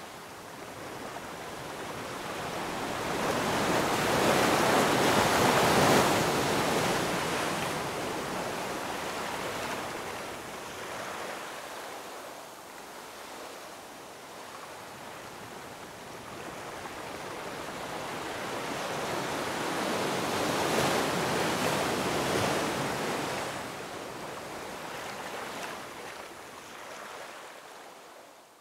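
Ocean surf: waves washing in and drawing back in two slow swells, the first loudest about five seconds in and the second about twenty-one seconds in, fading out near the end.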